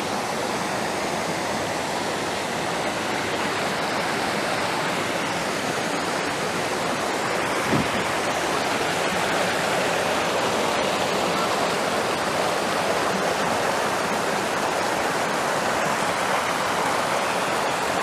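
A waterfall's falling water makes a steady, even rush. A brief faint thump comes about eight seconds in.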